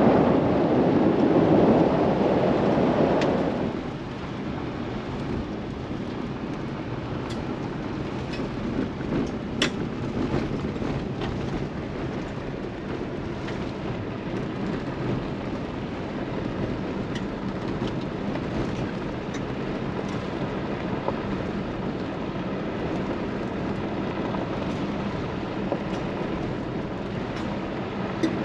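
Steady road noise of a moving vehicle, with a louder rush for the first few seconds and a few faint clicks.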